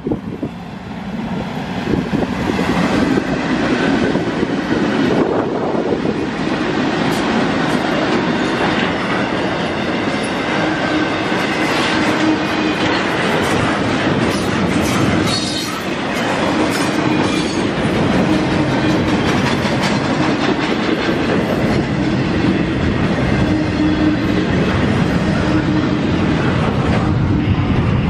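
Double-stack intermodal freight train passing close by. Its diesel locomotives build to a loud rumble over the first few seconds, then the container flatcars keep up a steady rumble and clickety-clack of wheels over the rail joints, with brief high wheel squeals about halfway through.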